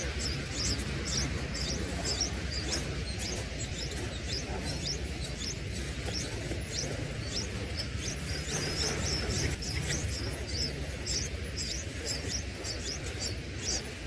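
Red-whiskered bulbul nestlings begging at the nest: a rapid series of short, thin, high chirps, several a second, over a steady low rumble.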